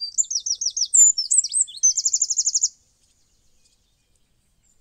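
A songbird singing: a run of quick high notes that each slide downward, a few varied notes, then a fast, even trill, ending about three seconds in.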